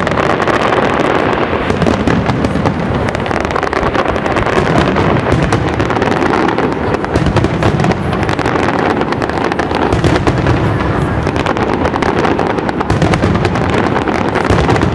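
Aerial fireworks display going off in a dense, continuous barrage: many overlapping bangs and crackling bursts with no pauses.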